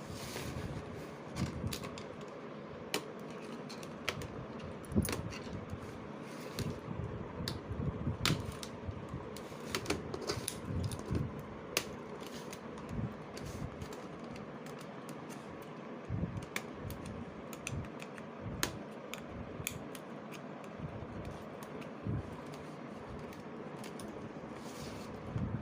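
Irregular clicks and taps from plastic laptop parts being handled and worked with small tools, over a steady low hum.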